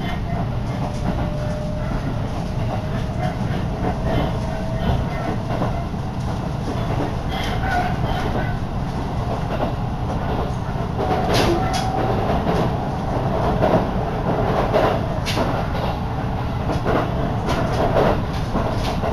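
Running noise heard from inside a carriage of a Minobu Line electric train under way: a steady low rumble of wheels on the track with a faint steady whine, and clickety-clack knocks of the wheels over rail joints, coming more often in the second half.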